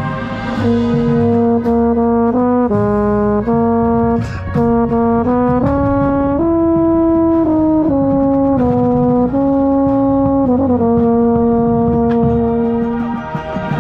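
Marching euphonium played close to the microphone: a solo melodic line of held notes stepping up and down in pitch, ending on a long held note that stops near the end.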